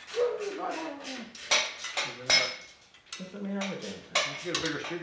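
Two sharp metal clinks with a short ring, about a second and a half and two and a half seconds in, from tools and mounting hardware knocking together. The hardware is being fitted on a touring motorcycle's exhaust muffler and bracket.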